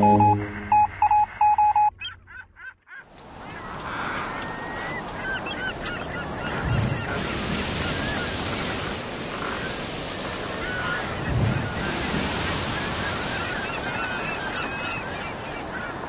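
Electronic beeping tones for the first two seconds, then steady sea waves washing with many seabirds calling over them.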